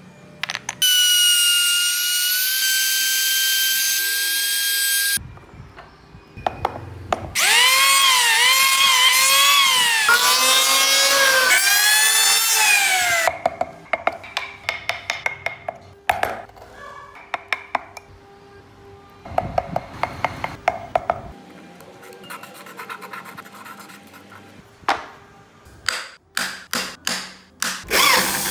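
Electric woodworking tools cutting wood, in several short runs. First a steady high motor whine for a few seconds. Then a motor whose pitch sags and recovers again and again as it bites into the wood. After that come clicks and scraping from hand tools, and a few short bursts of a motor near the end.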